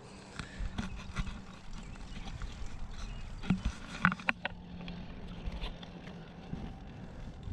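Bicycle rolling along a concrete street, with a steady low hum from the tyres and frame. Scattered sharp clicks and knocks come from the bike and its handlebar-mounted camera, loudest in a cluster about halfway through as the camera is swung round to face forward.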